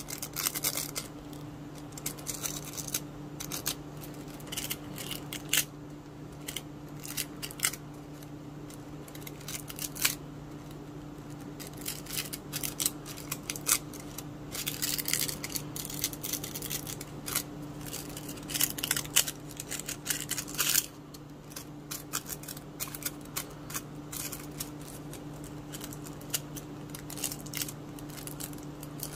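Nail transfer foil being pressed and rubbed onto fingernails: crinkling foil and many small clicks of long nails against the foil and each other, with a steady low hum underneath.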